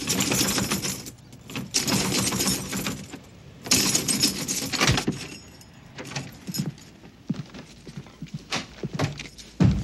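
A bunch of keys jangled and rattled hard against a door lock in three loud bursts over the first five seconds, then softer clicks and rattles of the keys. A dull thump near the end.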